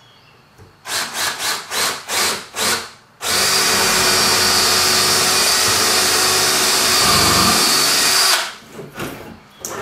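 Cordless drill boring into the end of a wooden 2x4: about six short trigger pulses to start the bit, then a steady run of about five seconds as it drills the hole, then a couple of brief spurts near the end.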